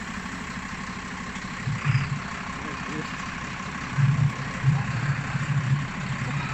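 Diesel engine of a Mercedes-Benz Atego fire engine idling steadily, with a few louder low surges about two seconds in and again from about four to six seconds in.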